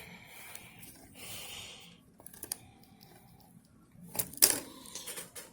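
Light plastic clicks and handling noise from laptop screen-lid parts being handled, with a short scrape a little over a second in and the loudest cluster of clicks about four seconds in.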